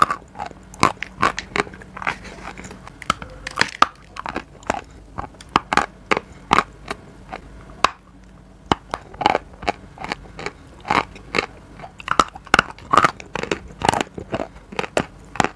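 Close-miked crunching as a dry block of edible clay is bitten and chewed: irregular sharp cracks several times a second, with a short lull about halfway through.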